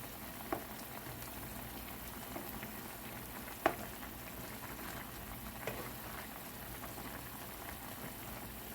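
Pot of chicken in jerk sauce and water boiling on high heat, bubbling steadily. A few sharp clinks over the bubbling, the loudest about halfway through.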